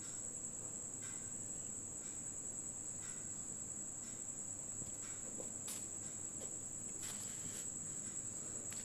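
Quiet room with a steady high-pitched tone throughout and a few faint, short scratches of a pen writing on paper.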